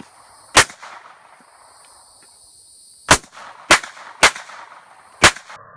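Five gunshots: one about half a second in, then a pause, then four more in quick succession near the end, the middle three about half a second apart, each followed by a short echo.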